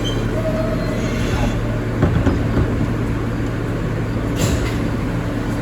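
R160B subway car running along the track, heard from inside the car: a steady low hum with a few knocks about two seconds in and a brief hiss about four and a half seconds in.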